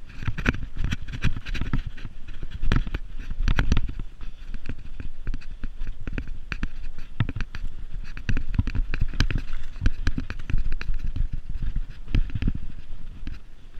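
Mountain bike jolting down a rough grass track: a fast, irregular clatter of knocks and rattles from the bike over the bumps, with a low rumble of wind on the microphone.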